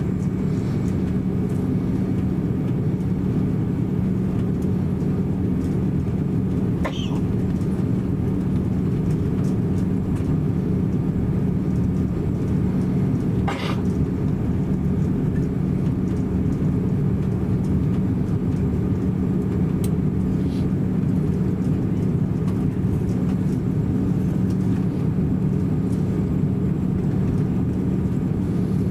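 Cabin noise inside a taxiing Airbus A330-300 (Rolls-Royce Trent 700 engines): a steady low rumble with a constant hum. Two brief clicks come through, about seven and thirteen seconds in.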